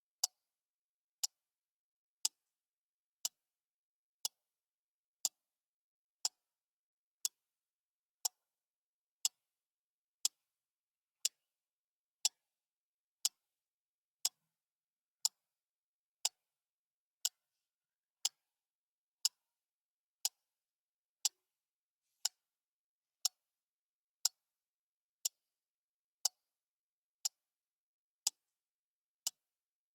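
Clock ticking steadily, one sharp tick a second with silence between.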